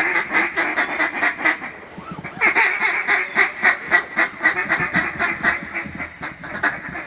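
Rapid run of loud mallard quacks blown on a hunter's duck call to work circling ducks, about four to five quacks a second with a short break about two seconds in.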